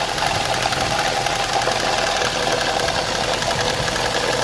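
Opel Vectra A engine idling with its valve cover off, the exposed camshaft and rocker arms ticking rapidly and evenly. The owner is chasing a valve knock that he puts down to a worn, poorly oiled cam lobe.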